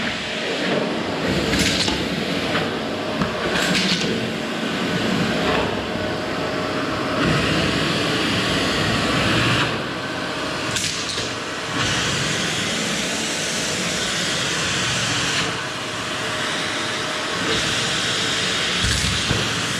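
Vacuum cleaner running steadily, its hiss swelling and easing every few seconds, with a few brief knocks.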